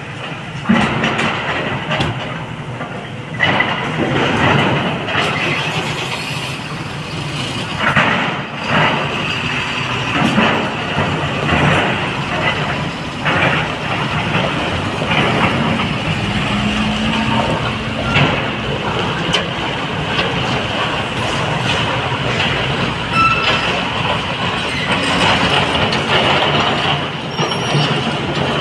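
Tata Prima LX 3530.K tipper truck running as it drives over quarry gravel, its diesel engine noise mixed with frequent knocks and clanks from the steel body and chassis rattling.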